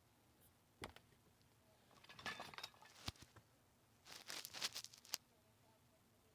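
Faint clicks and short metallic rattles of locksmith's tools working a house door's knob lock: a sharp click about a second in, two bursts of rattling, and another sharp click after about five seconds.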